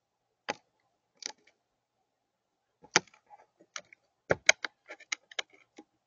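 Crow's bill pecking and tapping on a feeder tray as it picks up food: sharp separate clicks, a couple at first, then a quick run of them in the last two seconds.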